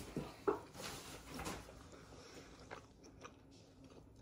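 Faint chewing and small mouth and handling clicks close to the microphone, with a brief voice-like sound about half a second in.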